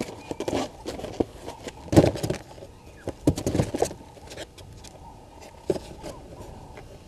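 Irregular knocks, bumps and rustling close to the microphone. The loudest come about two seconds in and in a quick cluster around three and a half seconds.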